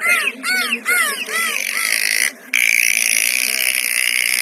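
Dolphins calling: a quick run of chirping whistles, each rising and falling in pitch, about three a second. After a brief break about two seconds in comes one long, steady, high squealing whistle.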